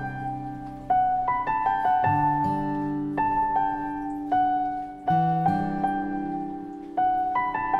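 Soft piano music: chords struck every second or two, each left to ring and fade.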